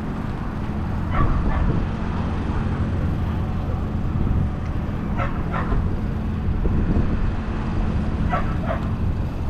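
Bulldog barking in three short pairs of sharp barks, a few seconds apart, over a steady low rumble.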